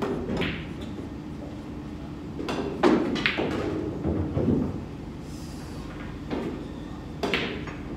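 Billiard balls clacking on a pool table during a nine-ball match: a few sharp knocks, the loudest about three seconds in, with lighter ones before and after.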